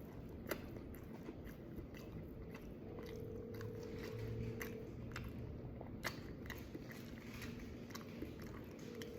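Close-up chewing of a sandwich of crunchy breaded chicken nuggets with pickles and tomato: a run of small, irregular crunches and wet mouth clicks, with a sharper crunch about half a second in and another about six seconds in.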